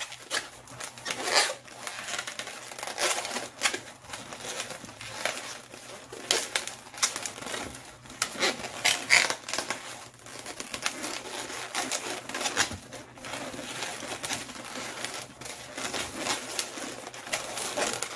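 Long white latex twisting balloon squeaking and rubbing as it is twisted into a series of small two-finger loops: a steady string of irregular squeaks and crinkles.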